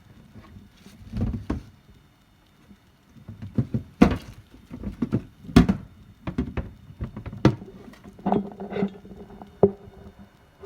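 Irregular knocks, clunks and light clatter of household objects being picked up and set down, in a small room.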